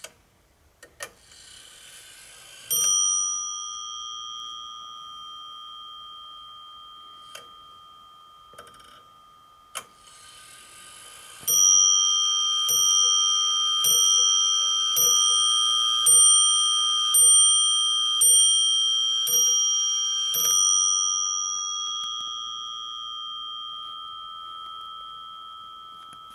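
Warmink Friesian-style 8-day wall clock striking on its bell: one single strike a few seconds in, then a few clicks, then nine strikes about a second apart for nine o'clock. The last one rings on and slowly fades.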